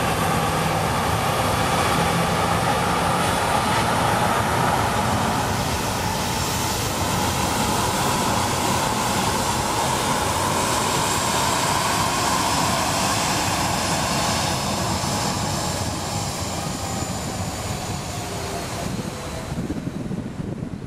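Boeing 737 airliner's twin jet engines running loud and steady, with a whine that falls slowly in pitch and fades over the last few seconds as the jet moves away.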